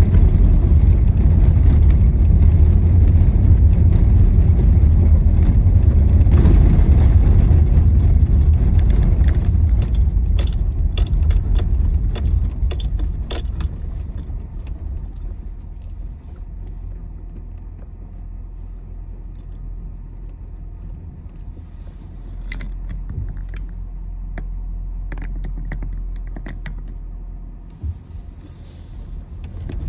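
Car driving on a country dirt road, heard from inside the cabin: a loud low rumble of tyres and engine that fades to a quieter hum about halfway through as the car slows, with scattered small clicks and rattles.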